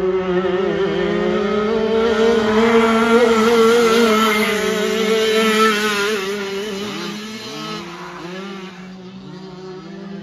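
Several two-stroke Yamaha KT100 dirt kart engines racing at high revs, several engine notes at once. The sound swells as a kart passes close, at its loudest about three to six seconds in, then drops in pitch and level as it moves away, with the other karts still running further off.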